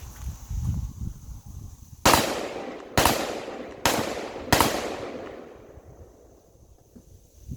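Four gunshots, a little under a second apart, each followed by a long echoing tail.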